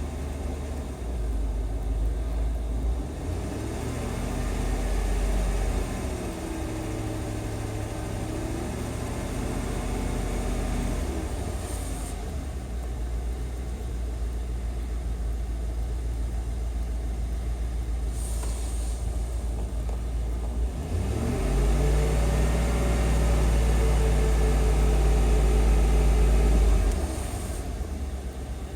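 2002 Chevrolet Tahoe's 5.3-litre V8 running. Its speed swells up and back down briefly, then rises again about two-thirds of the way in and is held higher and louder for several seconds before dropping back.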